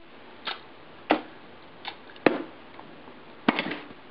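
Metal lid of a Pokémon card tin being worked loose and pulled off: a series of about five sharp metallic clicks and clanks, ending about three and a half seconds in with a quick rattling cluster.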